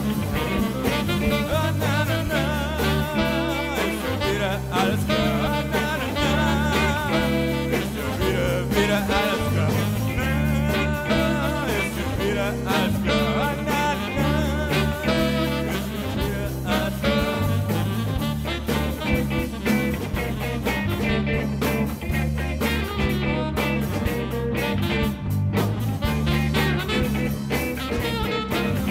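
Background music: an instrumental track playing steadily.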